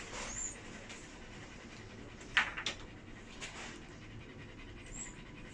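A few faint, short breathy huffs of an animal panting, the clearest about two and a half seconds in.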